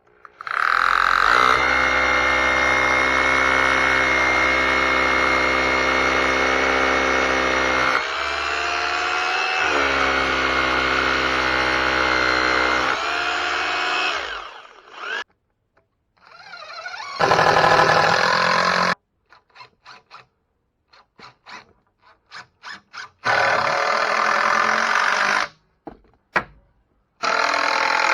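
Power tool motor running during wood stud framing. One long steady run sags in pitch under load about eight seconds in and then recovers. After a pause come a string of short trigger bursts and two more steady runs.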